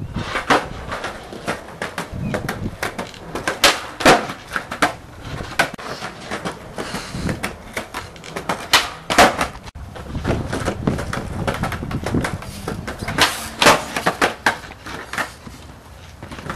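Enjoi Whitey Panda skateboard doing flatground flip tricks on concrete: repeated sharp pops of the tail and clacks of the board landing, with the wheels rolling between them.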